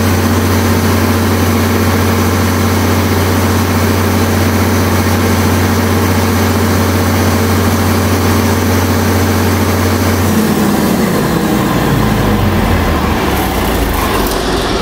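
Allis-Chalmers 670T turbocharged diesel driving a 100 kW generator set, running at a steady speed. About ten seconds in it is shut off and winds down.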